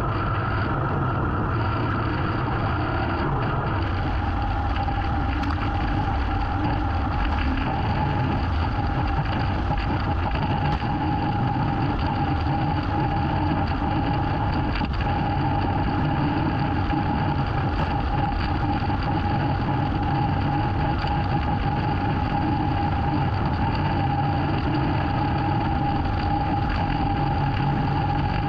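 Small gas engine of yard power equipment running steadily, its pitch dropping a little about four seconds in and then holding level.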